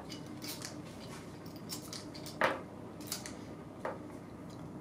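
Small steel screws clicking and clinking as they are drawn out of an all-metal leak valve body and set down on the table, a few light clicks with the sharpest about halfway through.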